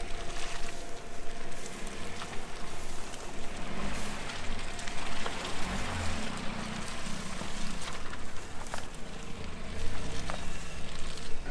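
A 4x4 SUV driving off-road through mud: its engine running under load, with a steady rush of tyre and splashing noise and a few knocks.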